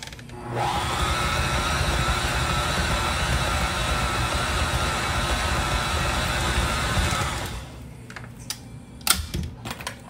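Tilt-head stand mixer motor starting up and running steadily with its flat beater turning through a thick chicken and cream-cheese filling, then stopping about seven and a half seconds in. A few sharp clicks follow near the end as the mixer head is tilted back up.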